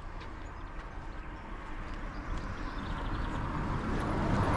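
Riding noise from a bicycle in motion: a steady rushing hiss over a low rumble of wind on the microphone, growing louder toward the end.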